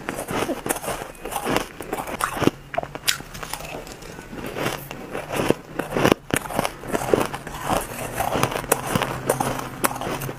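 A person biting and chewing frosty ice close to the microphone: a dense, irregular run of crisp crunches and crackles.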